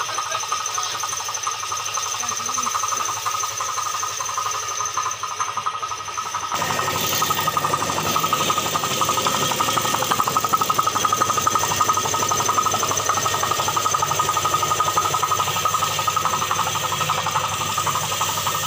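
A motor-driven machine running steadily: a continuous drone with a fixed high whine. The sound grows fuller and a little louder about six and a half seconds in.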